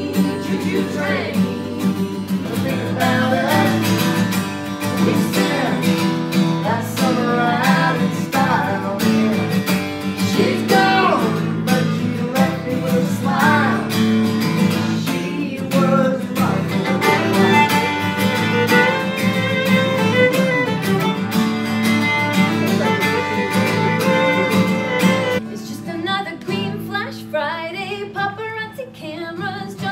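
Unamplified acoustic country music: fiddle and acoustic guitars playing together. About 25 seconds in the guitars stop and a single melody line carries on alone.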